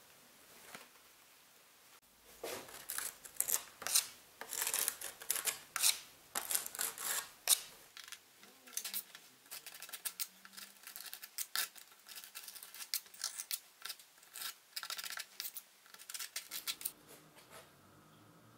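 A rapid, irregular run of crisp clicks and snips from hand work with small glass mosaic tiles. It starts about two seconds in and stops shortly before the end.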